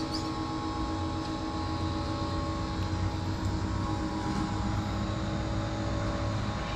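A steady mechanical drone with several held tones that stays unchanged throughout, like a machine running.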